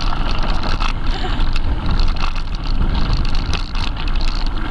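Mountain bike rolling along a gravel forest track: a steady rumble of tyres on the loose surface, with many small rattles and clicks from the bike.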